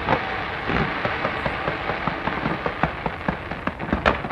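Fireworks going off in a dense, continuous crackle, with sharp bangs just after the start and a louder one near the end.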